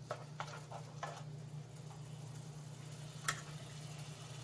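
A few faint metallic clicks from a lidded cooking pan on the stove, four in the first second and one more about three seconds in, over a steady low hum.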